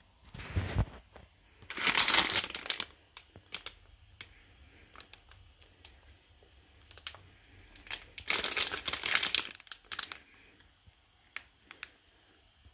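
Plastic Haribo Trekdrop candy bag crinkling as it is handled and turned, in two longer bouts about two seconds in and about eight seconds in, with short scattered crackles between.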